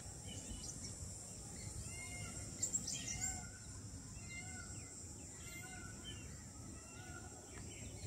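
Birds chirping and calling, a mix of many short repeated calls, faint over a steady high-pitched insect drone. There is a brief louder click about three seconds in.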